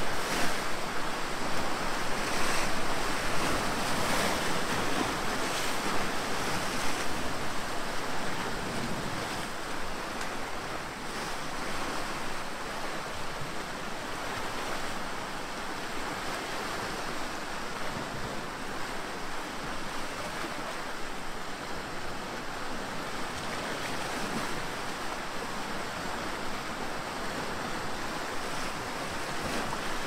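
Small sea waves washing and breaking against rocks along the shore, surging louder a few times in the first several seconds, then settling into a gentler steady wash.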